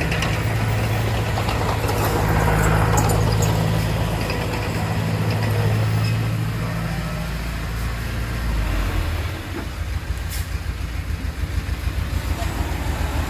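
Heavy diesel engine of earthmoving machinery running steadily under load, then settling about two-thirds of the way through into a lower, pulsing idle.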